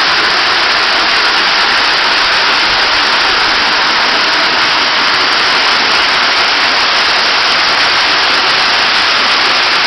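Steady, loud rush of water falling from an artificial faux-rock waterfall.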